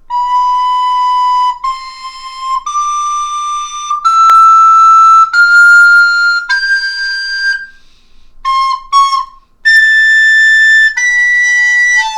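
Aulos 702BW plastic recorder playing single held notes that step upward one at a time, then two short notes and two higher held notes near the end. It is a tuning check of each note of the scale up into the hard-to-sound high register.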